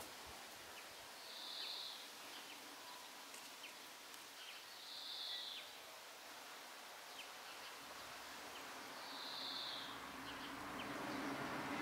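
Quiet garden ambience: a faint short hiss, high in pitch, comes about every four seconds, with a few soft ticks and a low background rising near the end.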